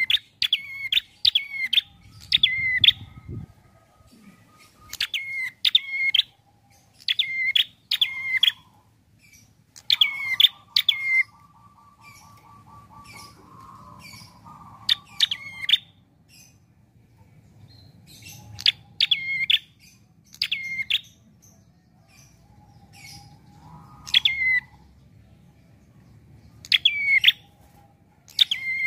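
A caged tailorbird calling in quick runs of two to five sharp, sweeping notes, repeated every second or two with a few longer pauses.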